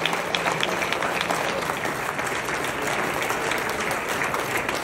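Audience applauding steadily, with individual claps standing out close by.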